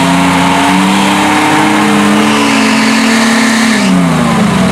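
An off-road 4x4's engine revving hard, held at high revs with the pitch creeping up slightly, then the revs falling away near the end.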